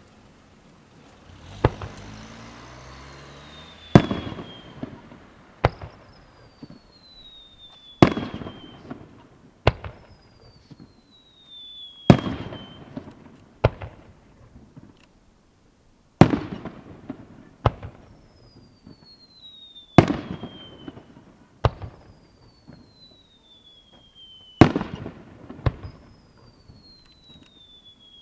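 Aerial firework shells going off in a steady sequence, a loud bang about every two seconds with a rumbling tail. Many bangs are followed by a high whistle that falls in pitch over a second or so.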